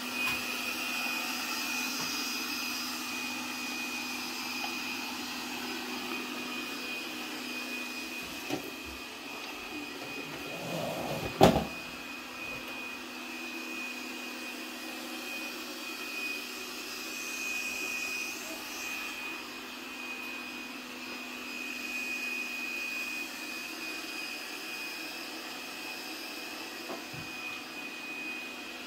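Lubluelu robot vacuum running in combined vacuum-and-mop mode: a steady motor hum with a constant high whine over it. A single sharp knock sounds about eleven seconds in.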